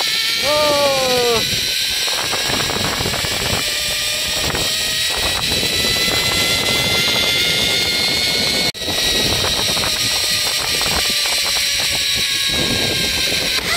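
Zipline trolley wheels running along the steel cable with a high whine that slowly rises in pitch, over heavy wind rush on the microphone. A person gives a short falling cry about a second in, and the sound cuts out for an instant about nine seconds in.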